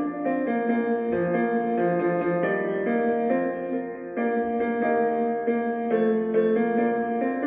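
Piano playing chords in an instrumental passage, with no voice.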